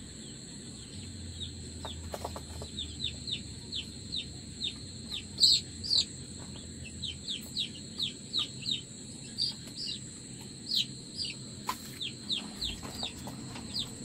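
Aseel chick peeping over and over as it is held for eye-drop vaccination. The peeps are short, high and falling in pitch, about three a second, and start a couple of seconds in.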